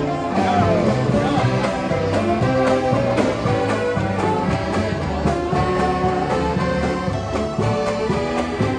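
Mummers string band playing a lively tune together on banjos, accordions and saxophones.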